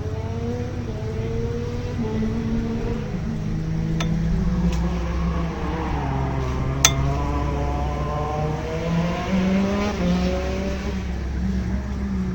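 100cc two-stroke kart engine heard on board during a lap, its revs dropping and climbing again several times. A sharp click comes about seven seconds in.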